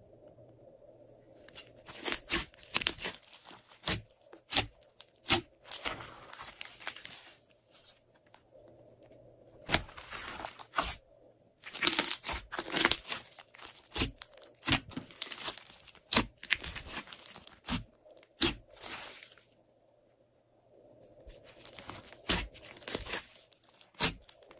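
Glossy slime being squished and stretched by hand, giving clusters of sticky crackles and pops with short pauses between them.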